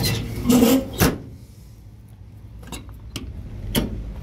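Metal utility-body compartment door swung shut, with a rattle and then a sharp latching clack about a second in, followed by a few lighter clicks.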